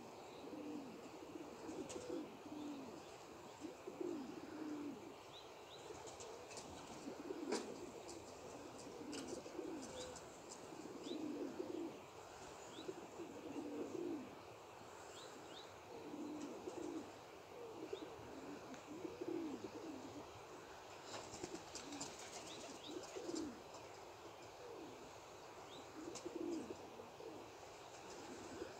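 Domestic pigeons cooing over and over, low soft coos coming every second or two from several birds in a flock.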